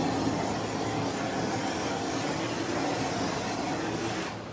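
Handheld torch flame hissing steadily as it is passed over freshly poured epoxy to pop surface bubbles, cut off suddenly near the end.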